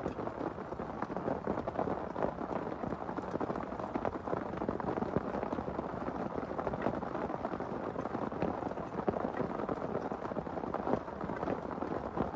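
Heavy rain falling steadily, a dense even hiss made up of countless small drop impacts.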